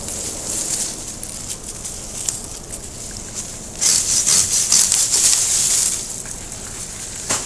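Hand pruning saw cutting through a Japanese maple branch for about two seconds, starting a little before halfway, amid rustling of leaves and twigs as the branches are handled. A single sharp click near the end.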